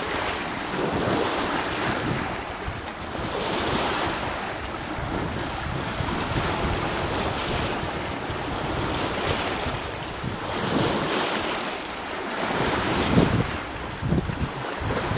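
Choppy lake waves washing and splashing against shoreline boulders, swelling and easing every second or two, with wind buffeting the microphone.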